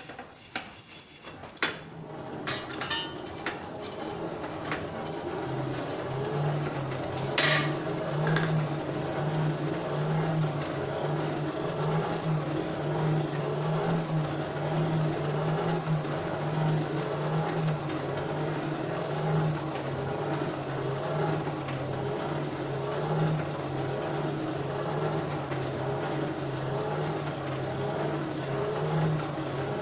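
Forge blower running with a steady low hum that builds up over the first several seconds, pushing air into the forge fire. A few sharp knocks of metal in the first eight seconds, the loudest about seven seconds in.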